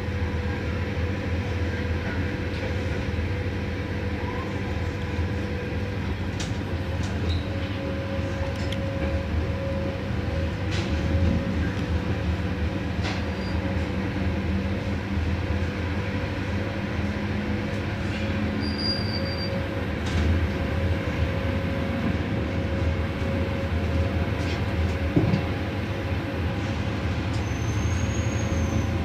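Ride noise inside a UIC-Z1 passenger coach running along the track: a steady low rumble of wheels on rail, with a few short knocks from the track and several brief, high wheel squeals.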